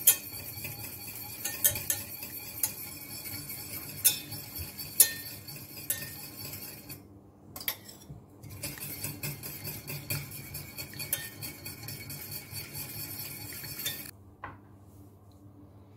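Wire balloon whisk scraping and clinking against a stainless steel saucepan, with sharp clinks now and then, as butter is whisked into a reduced shallot and white-wine base to mount a beurre blanc. The whisking pauses briefly about seven seconds in and stops about fourteen seconds in.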